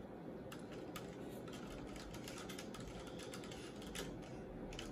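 Irregular light clicks and taps of a thin stirring stick against a plastic cup of egg dye, over a faint steady room background.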